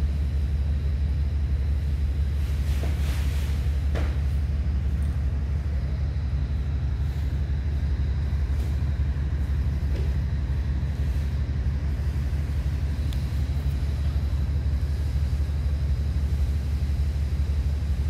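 A steady low machine rumble, unchanging throughout, with a few faint clicks or knocks around three to four seconds in and again near ten seconds.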